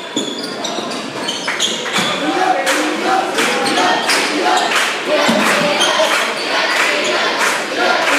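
A basketball bouncing on a hardwood gym floor during play, with repeated sharp thuds, sneakers squeaking, and crowd voices shouting over the play.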